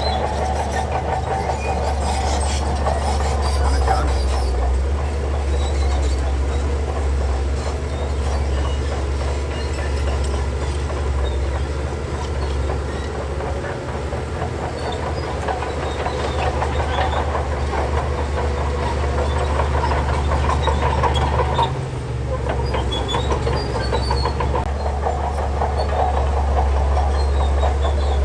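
Shantui DH17C3 crawler bulldozer's diesel engine running steadily under load, with a continuous clanking and rattling of its steel tracks and the stone fill.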